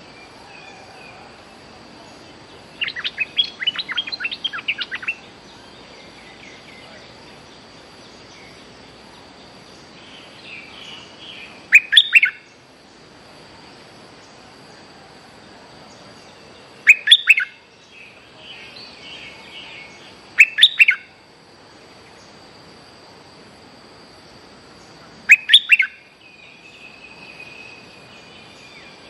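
Decoy bulbul (merbah lekir) calling from its cage. A quick chattering run of notes comes a few seconds in, then short loud phrases of two or three sharp notes every few seconds, with softer calls between them. A faint steady high whine sits behind the calls.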